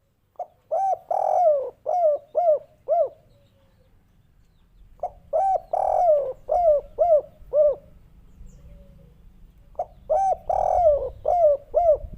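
Spotted dove (tekukur) cooing its 'kuk 3' song: three phrases about five seconds apart, each a brief note and a longer coo followed by a quick run of short clipped coos.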